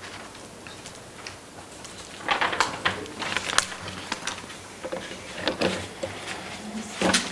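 Papers rustling and being handled near a table microphone: irregular crackles and clicks starting about two seconds in, over a faint low hum.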